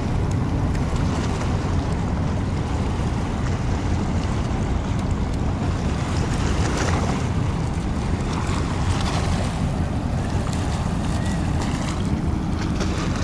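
Wind buffeting the microphone in a steady low rumble, with harbour water washing against a rocky shore, swelling a few times.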